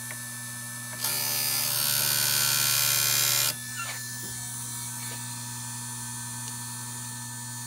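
Electric chainsaw sharpener's motor running with a steady hum. About a second in, its grinding wheel is brought down onto a chain tooth and grinds with a loud, harsh noise for about two and a half seconds, then lifts off, leaving the motor humming.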